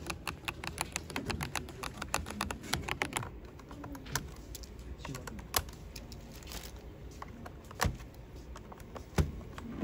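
Typing on a mechanical keyboard, a fast run of key clicks for about three seconds. After that come sparse single clicks and clacks, with a few sharp louder ones, as key switches are pulled out of a hot-swap keyboard to be replaced.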